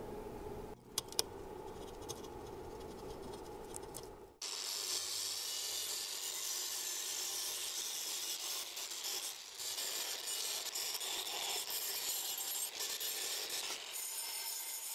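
Two sharp clicks, then about four seconds in a wire brush on an angle grinder starts scrubbing a cast aluminium alternator housing with a steady, scratchy rasp. The brush is cleaning corrosion off the metal.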